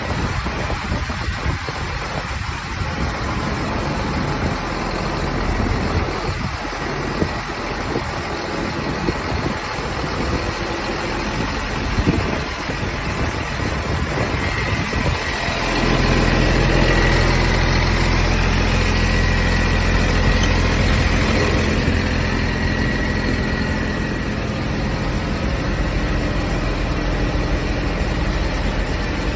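Cummins 6.7 QSB inline-six diesel of a 2011 Ottawa yard truck idling steadily. Through the first half the sound is gusty and noisy. About halfway in, the engine's steady low hum becomes much louder and clearer.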